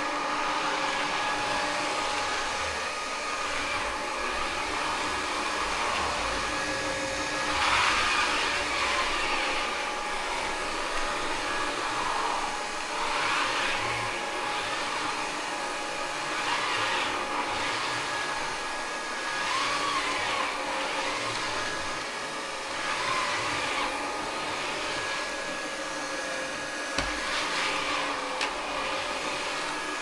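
Roborock Flexi Pro cordless wet-dry floor vacuum running in eco mode as it is pushed over a wooden floor: a steady motor whine over a hiss that swells louder several times.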